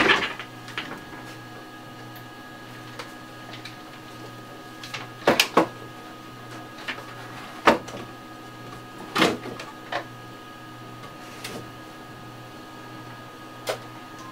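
Knocks and clatter as a bench power supply and its cables are handled and set back in place on a shelf: scattered sharp knocks a second or more apart, over a steady electrical hum.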